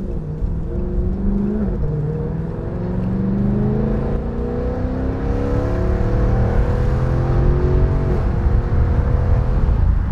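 2019 Dodge Charger Scat Pack's 392 HEMI V8 running through a Corsa Extreme cat-back exhaust while accelerating. The engine note climbs steadily in pitch and drops at a gear change about two seconds in, then again about eight seconds in.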